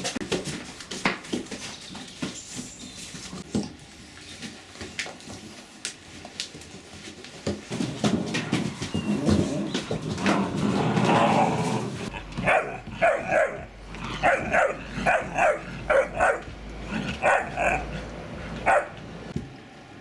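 Irish wolfhound puppies about ten weeks old playing, with scuffles, clicks and rustling of shredded newspaper, then, about halfway through, a run of short repeated barks, two or three a second.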